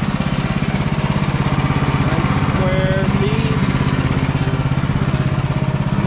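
Small single-cylinder gas engine of a Woodland Mills HM126 portable bandsaw mill running steadily with an even, rapid chug, with no change in speed or load.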